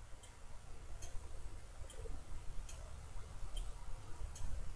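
Quiet room tone with a faint, regular tick a little faster than once a second, over a low hum.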